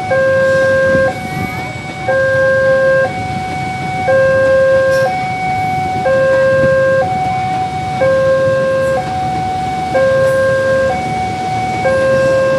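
Railway level-crossing warning alarm sounding its two alternating electronic tones, a lower and a higher one, switching about once a second. A low rumble runs underneath.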